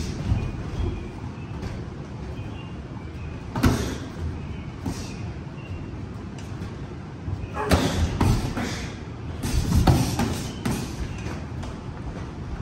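Boxing gloves landing punches in sparring: scattered thuds, one a little under four seconds in, then a quick flurry of several more about two-thirds of the way through.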